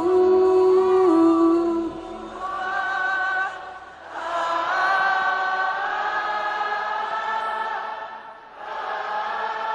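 Choir and congregation singing worship in long held notes in harmony, in three phrases with a brief dip about four seconds in and again near the end.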